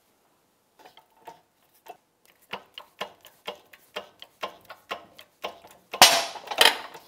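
A bearing being pressed into an aluminium motorcycle crankcase half with a socket as the driver: a run of sharp ticks and clicks, about two a second and growing louder, then two loud cracks near the end as the bearing shifts and seats. The bearing is going in cold, without the case heated, and tries to go in crooked.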